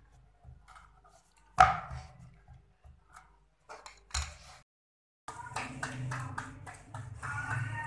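Two knocks on a wooden rolling board while paratha dough is worked with a rolling pin, the first sharp and loud. About five seconds in comes a quick run of slaps as the flattened paratha is patted back and forth between the palms.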